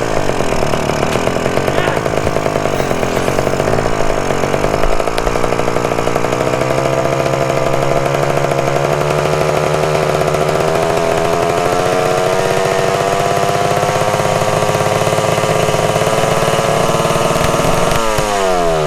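1974 Honda MT250 Elsinore's two-stroke single-cylinder engine running hard at high revs without letting up, its pitch creeping slowly higher, then starting to fall away near the end. The throttle is stuck open.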